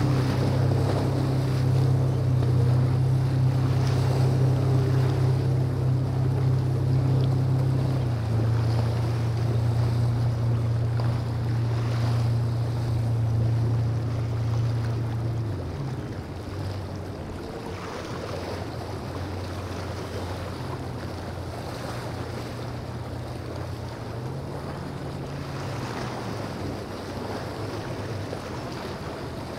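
Outboard engines of a center-console boat running at speed through choppy water: a steady engine drone over surf and wind noise on the microphone. The engine note drops a step about halfway through, and the whole sound grows quieter.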